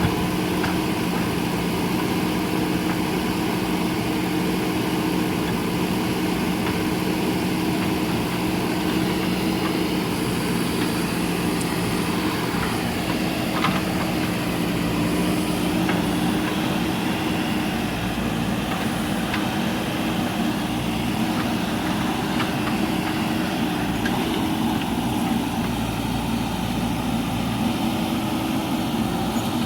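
JCB backhoe loader's diesel engine running steadily, with a few light knocks and clicks over it.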